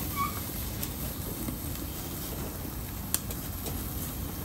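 Charcoal fire in an open kamado grill flaring around a prime rib roast being seared at about 700 degrees: a steady low rush of flames, with one sharp tick about three seconds in.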